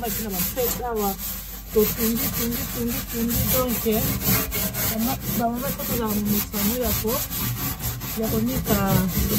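Metal scouring pad scrubbing an oven's enamelled metal inner wall back and forth, rasping in rhythmic strokes several times a second, with some pitched squeaks.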